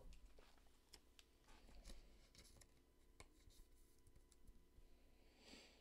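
Near silence, with faint scattered ticks and a soft swish of a trading card being handled.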